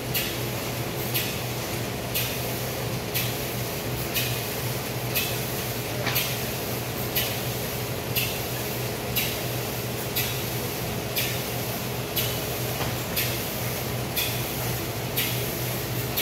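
Presstek Dimension 225 computer-to-plate unit running as an imaged plate feeds out onto its output rack: a steady low hum with a short hissing swish about once a second.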